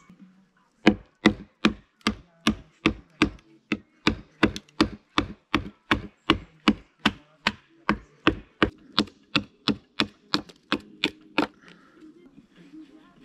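Rapid, even chopping strikes on wood, about three a second, starting just under a second in and stopping near the end.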